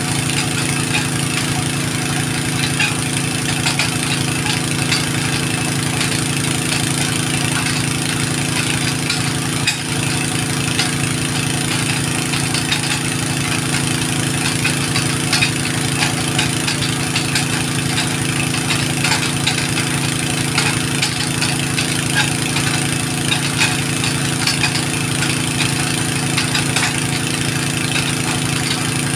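An engine idling steadily at an even speed.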